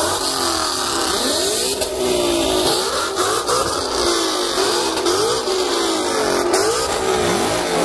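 Ford Mustangs revving their engines in short, repeated blips, the engine pitch climbing and dropping again and again.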